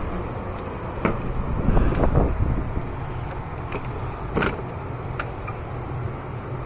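A few short clinks and knocks of hand tools and parts being handled under the hood, the sharpest about four and a half seconds in, over a steady low hum.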